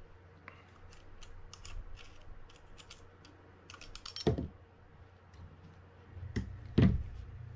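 Light metal clicks and taps of tweezers working at a Shimano Baitrunner 6500B spinning reel's rotor and handling small metal parts, with a few louder knocks about four seconds in and near the end.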